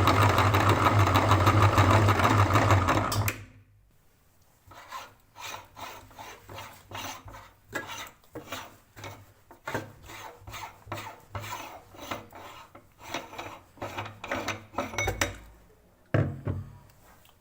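Electric meat grinder motor running, then switching off about three seconds in. A run of rough scraping strokes follows, about two a second, and a single knock comes near the end.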